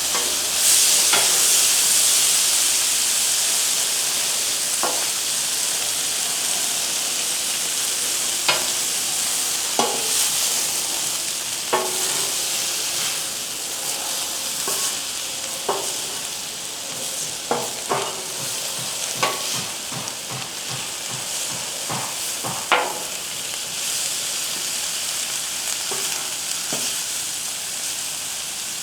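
Sliced vegetables sizzling on a Blackstone flat-top griddle, a steady frying hiss that swells for a moment about a second in. Sharp clicks and scrapes of a spatula on the griddle come every second or two as the vegetables are stirred.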